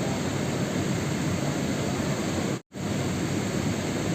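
Steady rain noise, a dense even hiss heaviest in the low range, cut to silence for an instant about two and a half seconds in, as at a splice in a looped track.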